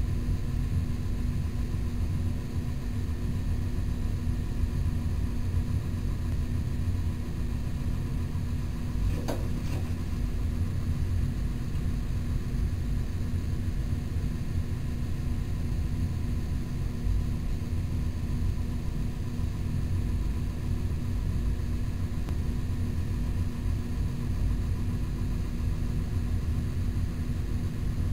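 Steady low mechanical hum with a constant drone, and a single faint click about nine seconds in.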